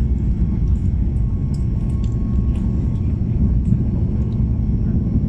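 Airliner's jet engines and wheels on the runway during the takeoff roll, heard from inside the cabin: a loud, steady low roar and rumble with a few faint clicks.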